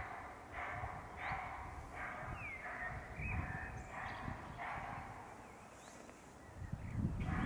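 A series of short harsh animal calls, roughly one or two a second, breaking off about five seconds in and starting again near the end, with a couple of thin high bird whistles in the middle.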